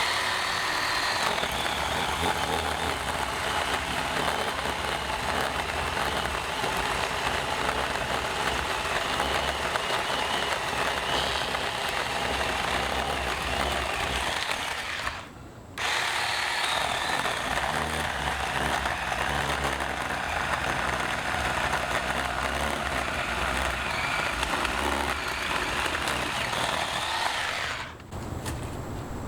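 Ryobi 18-volt battery chainsaw with a 10-inch bar, its electric motor whining as the chain saws steadily through a thick tree. The saw cuts out briefly about halfway through and again near the end.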